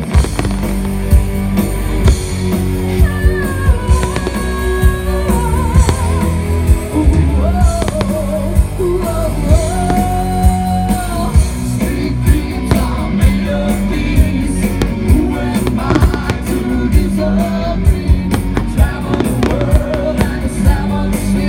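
Rock music with singing played over loudspeakers, with fireworks bangs going off again and again, more often in the second half.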